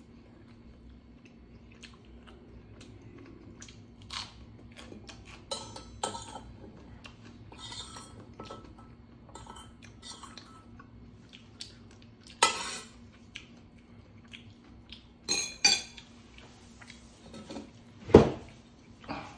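Metal spoon and chopsticks clinking and scraping against a stainless steel bowl in short irregular strokes, with a few louder clanks and a dull thump near the end.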